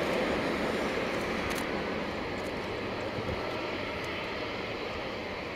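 Jet noise from an Airbus A340-600's four Rolls-Royce Trent 500 engines as the airliner rolls out on the runway after touchdown: a steady rush that slowly fades.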